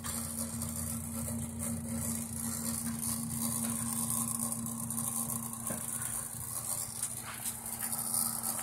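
IBM Selectric II electric typewriter idling with its motor switched on: a steady low hum, with a couple of faint clicks in the second half.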